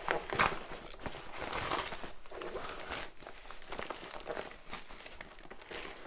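Brown kraft-paper mailer being torn open and crinkled by hands, with tissue paper rustling inside as the contents are rummaged through. Irregular rustles and tears, the loudest about half a second in.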